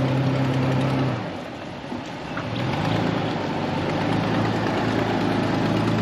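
Toyota FJ Cruiser's V6 engine pulling at low speed through mud: it holds a steady note, eases off about a second in, then picks up again with a short rise and holds steady as the truck passes close by.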